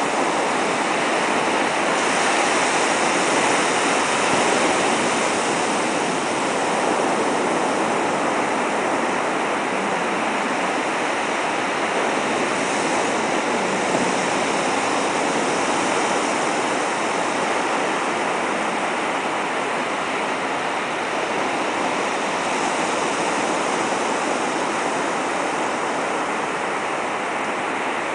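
Ocean surf breaking and washing through the shallows: a steady, loud rush of water, swelling slightly a couple of seconds in.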